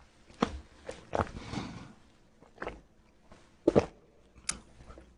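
A handful of short, sharp clicks and knocks at irregular intervals, the loudest a close double knock about two-thirds of the way through.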